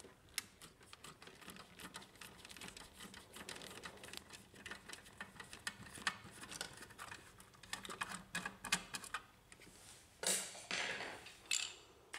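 Screwdriver backing a small screw out of a laser printer's laser scanner unit: a run of faint, irregular small clicks and ticks of metal on plastic. A louder scraping handling sound comes near the end.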